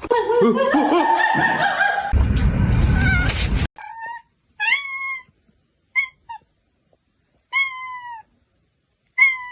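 A cat meowing in short, high calls, five or six of them with silent pauses between. Before the calls there is a noisy mix with a loud low rumble, which cuts off suddenly a few seconds in.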